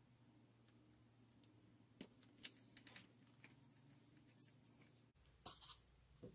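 Mostly near silence with a steady low hum, then from about two seconds in, faint light taps and paper rustles as a clear plastic grid ruler and a pen are handled and lifted off a scrapbook page.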